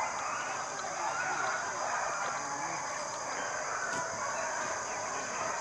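A pack of foxhounds baying together, many overlapping voices running on without a break: hounds in full cry on the trail of a fox.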